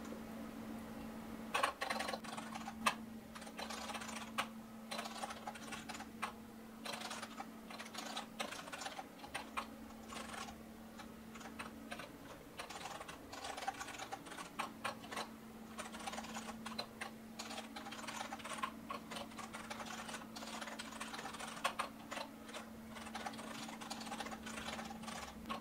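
Computer keyboard typing: a fast, uneven run of key clicks over a steady low hum.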